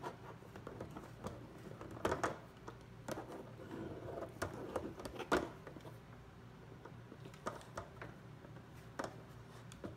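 Beagle puppy working a plastic Trixie Activity Poker Box puzzle, its nose and mouth knocking and scraping the plastic box and tray in irregular clicks and taps. The clatter is busiest in the first half, then thins to a few clicks near the end.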